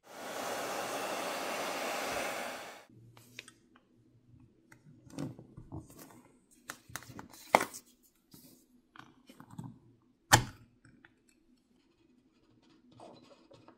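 A heat gun blows hot air in a steady rush for about three seconds to soften the screen adhesive, then cuts off. Quieter clicks, taps and handling noises follow as a suction-cup tool and plastic pry pick are worked on the phone, with two sharp clicks in the middle.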